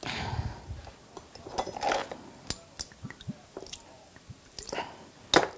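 Small kitchen handling sounds of a vinegar bottle and measuring spoon being worked over a glass bowl: a brief rustle at the start, then scattered light clicks and taps.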